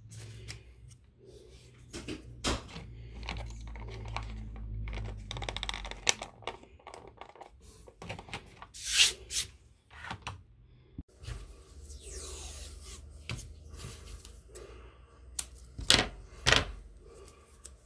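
Hands handling a small hard plastic box: scattered clicks, knocks and scrapes as a cover is fitted over its slot. Near the end, two sharp rips as electrical tape is pulled from the roll.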